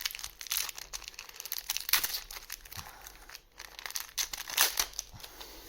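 Foil wrapper of a trading-card booster pack crinkling and tearing as it is opened by hand, with a run of short, sharp crackles.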